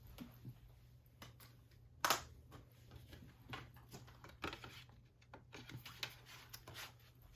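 Plastic Blu-ray case and discs being handled, with scattered light clicks and rustles and one louder snap about two seconds in.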